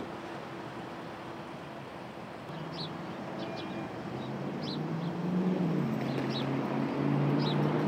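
Street traffic: a steady hiss of passing cars, with vehicle engines humming louder from a few seconds in as pickups pull through the intersection. Short high bird chirps repeat about once a second over the traffic noise.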